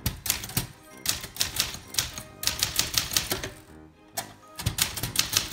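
Manual typewriter typing in quick runs of keystrokes with brief pauses between them. Background music plays underneath.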